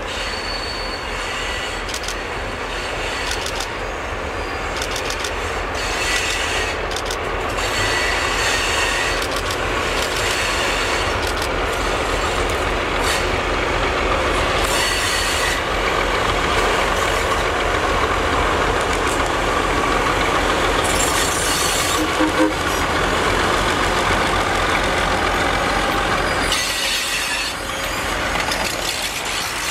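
General Electric 80-ton diesel locomotive passing with its train of passenger coaches. The diesel engine drones steadily under the rumble of coach wheels on the rails. The sound grows louder about six seconds in as the train draws near, and stays loud while the coaches pass.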